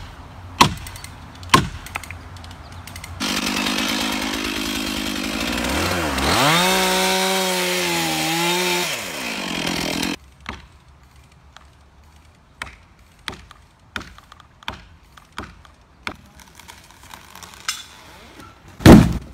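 A few sharp knocks, then a chainsaw runs for about seven seconds, its engine rising in pitch as it cuts through the back strap holding a leaning oak. A string of sharp cracks follows, about one a second, and near the end the oak hits the ground with a loud heavy thud.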